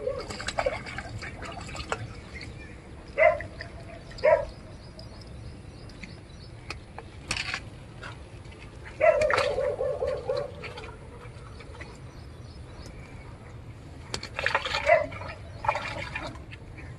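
An animal calling several times: short calls about three and four seconds in and again near the end, and one longer drawn-out call about nine seconds in.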